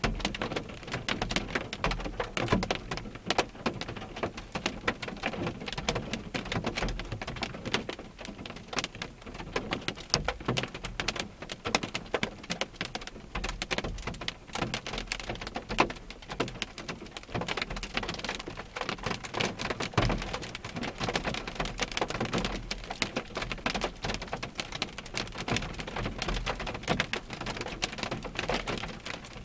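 Rain pattering on a parked car's windshield and roof, heard from inside the cabin: a dense, irregular crackle of drop impacts that keeps up throughout.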